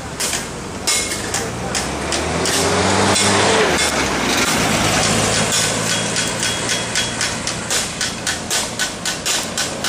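A motor vehicle's engine running as it passes in the first few seconds, then steady footsteps on concrete close to the microphone, about two a second.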